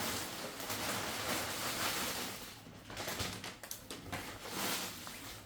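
Packing noises: about two and a half seconds of steady rustling, then a run of small clicks and knocks as things are handled, and another short rustle near the end.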